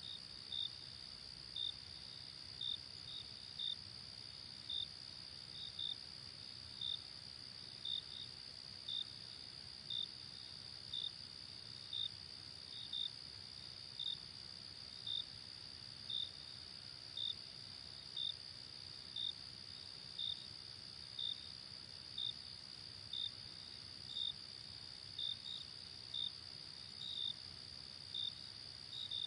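Insects chirping: a steady high trill runs underneath, and short chirps come about once a second, sometimes in quick pairs.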